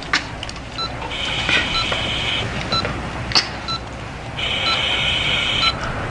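Hospital patient monitor beeping at a regular pace. Twice, a longer, higher hissing sound lasts over a second each time.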